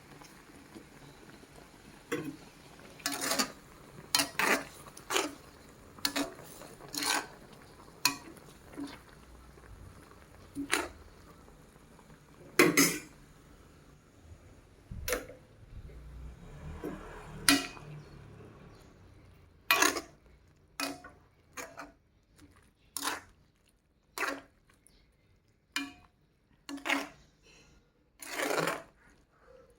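Utensils knocking and clinking against dishes at a meal: about two dozen short, irregular taps and clatters.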